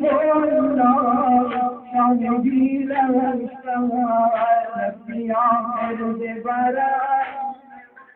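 A man's voice chanting a noha, a Shia lament sung in long, wavering held notes, over the crowd's rhythmic chest-beating slaps (matam).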